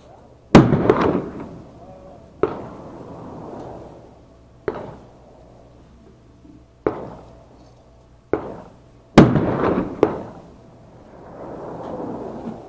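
Gunshots from other shooters on the firing line: six sharp reports at uneven intervals, each trailing off in an echo. The loudest come about half a second in and about nine seconds in.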